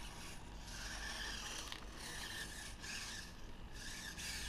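Faint rubbing and scraping as a camera gimbal frame is handled and tilted by hand, in soft repeated swells over a faint steady hum.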